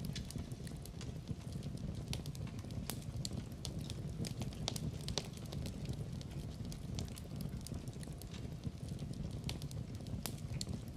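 Wood fire in a fireplace burning steadily, with a low rumble of flames and frequent irregular sharp crackles and pops.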